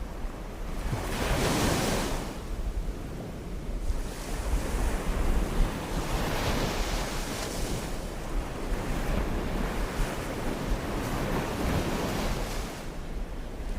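Sea waves breaking on a beach, the surf swelling and falling back every few seconds, with wind buffeting the microphone as a steady low rumble.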